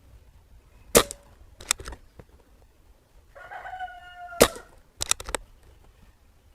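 Two shots from a moderated .177 Barra 1100Z PCP air rifle, about three and a half seconds apart, each a sharp crack followed within a second by quieter clicks. Between the shots a rooster crows once in the distance.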